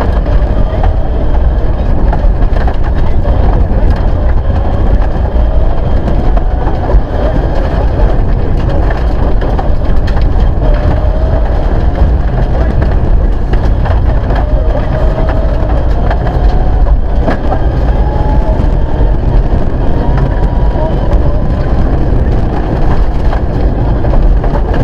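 Mitsubishi Lancer Evolution IX rally car's turbocharged four-cylinder engine at full load, heard loud from inside the cabin, revving up again and again as it climbs through the gears. Under it runs a heavy rumble from the tyres on the gravel.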